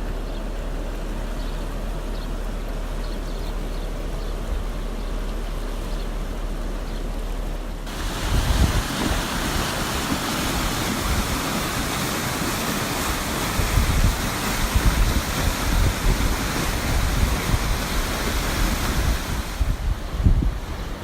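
Steady rushing noise of flowing floodwater, with wind buffeting the microphone. About eight seconds in it cuts abruptly to a louder, brighter rush with gusty low thumps, which eases near the end; a low steady hum runs under the first part.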